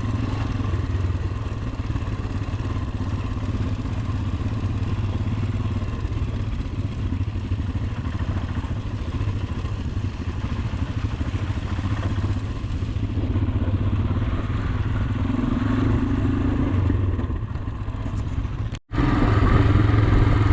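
Motorcycle engine running steadily while riding over a bad, muddy road. About nineteen seconds in the sound cuts out for an instant and comes back louder.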